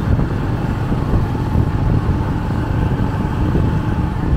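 Steady low rumble of road noise from a moving vehicle in traffic.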